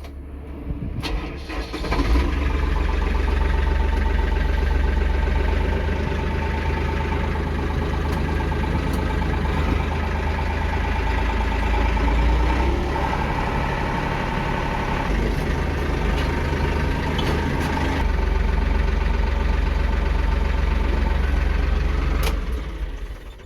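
Bucket truck's engine starting about two seconds in, then running steadily until it falls away near the end.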